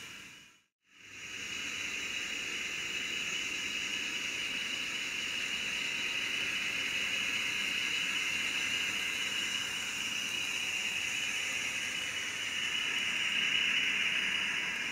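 Kato N scale Amtrak passenger train with SDP40F locomotives running on the layout track: a steady hissing run noise that cuts out briefly about a second in, then builds and is loudest near the end as the train comes close.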